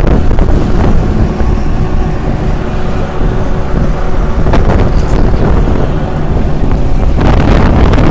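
Wind buffeting the microphone over road and engine noise while riding pillion on a moving motorcycle; a steady, loud rumble that dips a little midway and swells again near the end.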